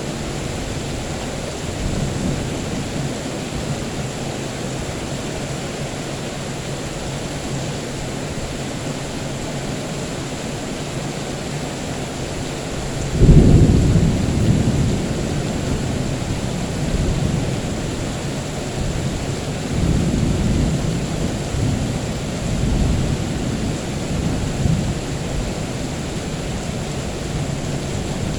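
Steady rain with a sudden loud thunderclap about halfway through, followed by several more rolls of rumbling thunder.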